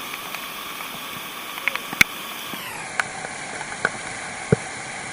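Waterfall rushing steadily, with short sharp sounds scattered through it.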